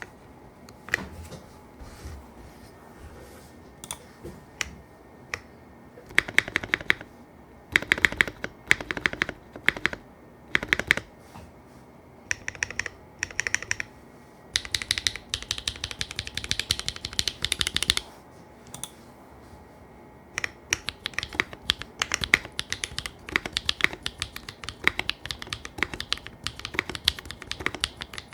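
Neo60 Core mechanical keyboard with brown tactile switches, plateless and foamless on a hot-swap PCB, being typed on in bursts of quick keystrokes, with steady continuous typing in the last third.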